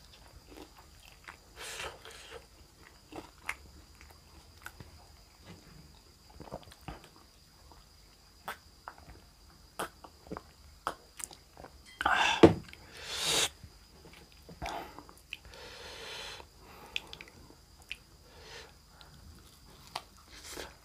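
A person biting and chewing food close to the microphone, with scattered short clicks and mouth sounds. A few louder bites come about twelve seconds in.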